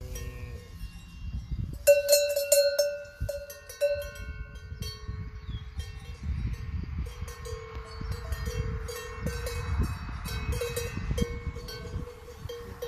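Metal cowbell on a cow's neck clanking as the cow moves, with a quick run of loud clanks about two seconds in, then lighter, irregular clanks.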